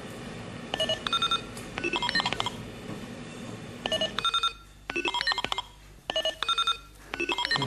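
Short electronic beeps in quick runs of three to five notes at different pitches, like keypad tones, repeated about six times. Under them is a steady low noise that drops away about four seconds in.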